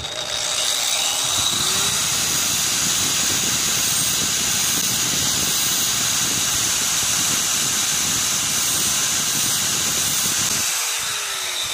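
Angle grinder starting up and running steadily while a drill bit's cutting edge is touched up against the spinning disc, then switched off near the end and winding down.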